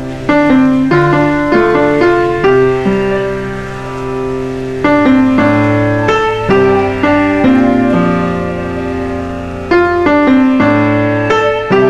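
Background piano music: a slow piece of struck notes and chords that ring and fade.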